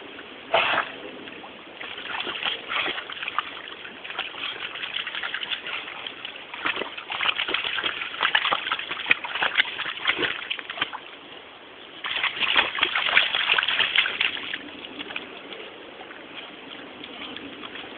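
Water splashing and sloshing in irregular bursts as a dog swims and paws at the water. There is a sharp splash about half a second in, a busy spell in the middle, and the loudest splashing a little after two-thirds of the way through.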